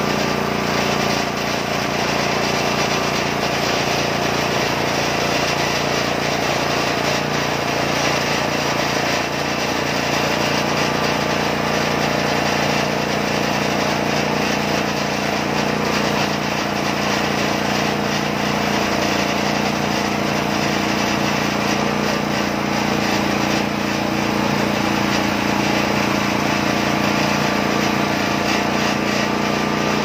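Small engine of a homemade band sawmill running steadily under load while the band blade cuts through a red box hardwood log.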